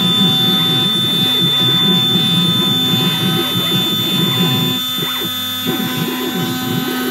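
CNC engraving machine running while it engraves a billiard cue: a steady high whine and hum over a busy, constantly changing low buzz from its moving motors. The buzz drops out briefly about five seconds in.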